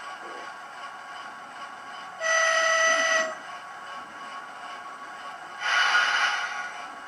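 Hornby class 08 diesel shunter model's TTS sound decoder playing a steady diesel engine sound through its small speaker, with a loud horn sounding for about a second some two seconds in and a second, noisier sound lasting about a second near the end.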